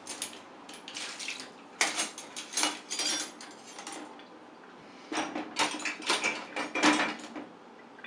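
Metal cutlery clinking and rattling against a dishwasher's cutlery basket and wire rack as a baby's hand pulls utensils out. The clatter comes in two bunches of quick clinks, about two seconds in and again about five seconds in.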